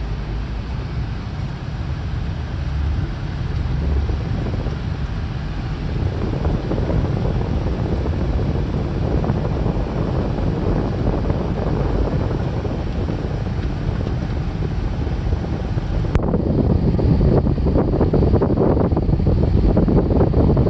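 Car driving through floodwater on a street: a steady rush of water and tyre noise with wind buffeting the microphone, getting louder about six seconds in and again suddenly about sixteen seconds in.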